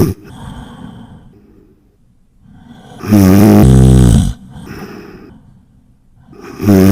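A person snoring, loudly. A long, rasping, pitched snore comes about every three and a half seconds, with a softer breathy sound after each: one snore in the middle, another starting near the end.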